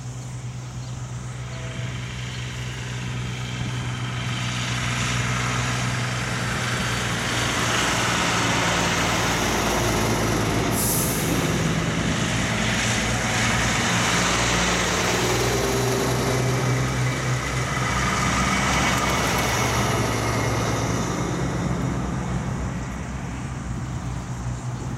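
Heavy diesel trucks with tall exhaust stacks approach and drive past one after another, the engine sound steady and low, building as they near and fading as they move off. There is a brief hiss of air about eleven seconds in, as the first truck passes close.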